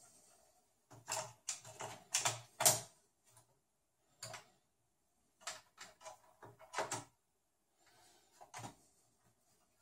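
Irregular clicks and clatter of metal and plastic parts being handled and fitted inside an open Sony VAIO desktop computer case. They come in a quick cluster from about a second in, again midway, and once more near the end.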